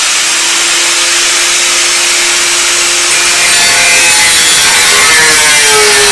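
Angle grinder cutting through the steel tubing of a motorcycle frame: a loud, steady, hissing cut with a faint whine that sags a little in pitch past the middle as the disc bites.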